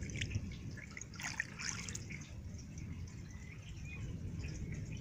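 A hand splashing and swishing through a shallow, muddy rainwater puddle. The splashing is strongest about a second in, with scattered small drips around it and a steady low rumble underneath.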